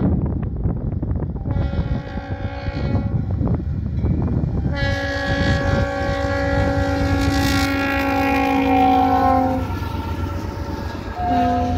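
Norfolk Southern diesel freight locomotive's air horn sounding for a grade crossing: a blast about two seconds in, then one long blast from about five seconds to nearly ten seconds as the locomotive reaches the crossing, and a short blast near the end, over the steady rumble of the approaching train.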